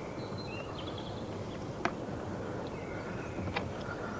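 Outdoor ambience: a steady low background rumble with small birds chirping faintly, and two sharp clicks, about two seconds in and again near the end.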